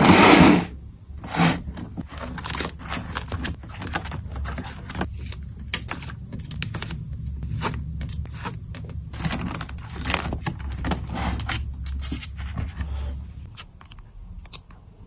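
Plastic sleeves and packaging rustling and crinkling with small clicks and scrapes as photocards are handled and packed, with a loud crackle right at the start. The rustling tails off near the end.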